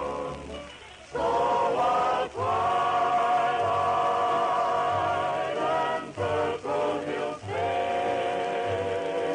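Vocal group singing held notes in close harmony with vibrato over a plucked bass line, the voices breaking off briefly between phrases, in an old radio broadcast recording.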